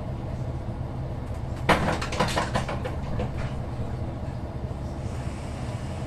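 Diesel railcar running, heard at the gangway between two cars: a steady low rumble, with a brief burst of metallic clattering and rattling about two seconds in.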